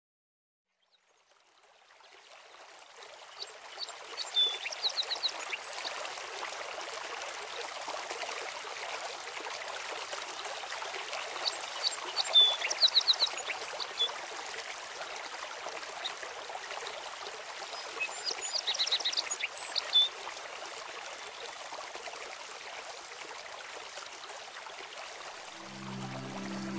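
Steady rush of running water fading in over the first couple of seconds, with short runs of rapid bird chirps at several points. Music starts near the end.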